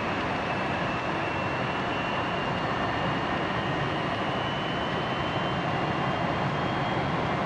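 Jet engine running steadily: a rushing noise with a faint high whine that slowly rises in pitch.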